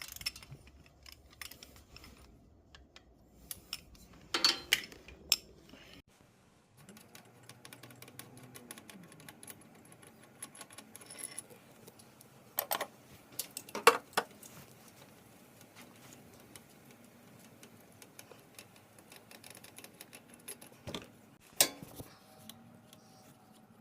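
Hand tools and metal parts clicking and clinking in a workshop, with a few louder metallic knocks spaced through it.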